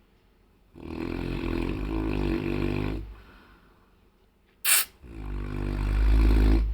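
Saint Bernard snoring: two long snores of about two seconds each, the second deeper and louder, with a short sharp burst of breath between them.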